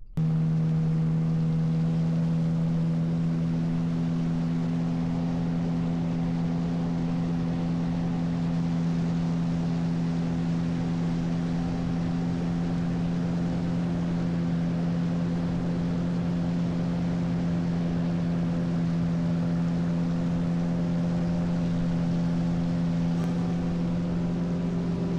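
Motorboat outboard engine running at a steady speed, one even tone with a constant hiss of water and wind.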